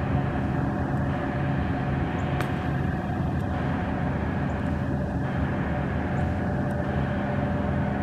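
Towboat's diesel engines running with a steady low drone.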